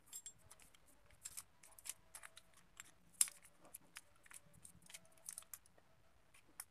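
Scattered light metallic clicks and clinks of a jaw-type bearing puller being handled and fitted over the worn bearing on a water pump motor's armature shaft, the sharpest click about three seconds in.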